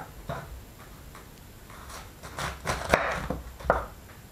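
Heavy kitchen knife cutting the hard core out of half a white cabbage: several short cutting and scraping sounds and knocks, the sharpest about three seconds in.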